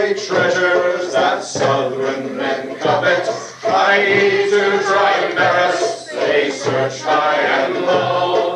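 A choir singing unaccompanied, many voices together in phrases with brief breaks between them.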